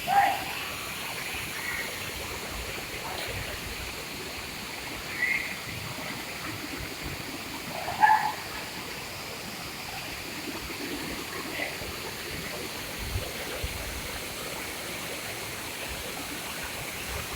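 Steady rush of flowing water at a mountain bathing spot, with a few short, sharp sounds over it about a second in, around five seconds, and most loudly around eight seconds.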